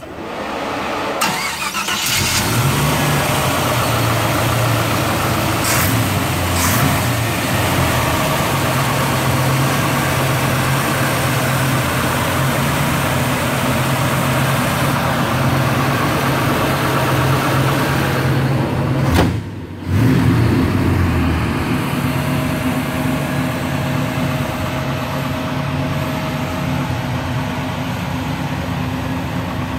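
A 1955 Chevrolet Bel Air's carbureted small-block Chevrolet V8 cranking and starting, then running steadily at idle, with a brief drop-out about two-thirds of the way through.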